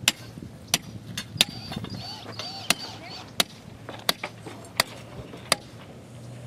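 Hammer driving stakes for wooden concrete forms: a steady run of sharp, ringing blows, about one every three quarters of a second. A voice is heard faintly in the middle.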